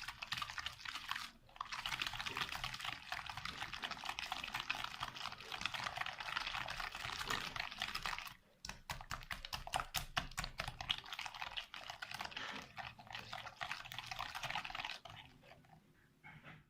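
Eggs and sugar being beaten by hand in a bowl, the utensil clicking rapidly and continuously against the bowl as the sugar is mixed in to dissolve. The beating breaks off briefly about a second in and again around eight seconds, and dies away near the end.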